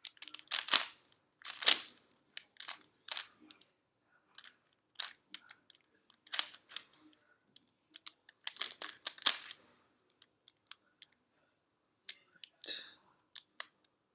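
V-Cube plastic puzzle cube being twisted by hand: irregular runs of clicking and clacking as its layers are turned, broken by short pauses.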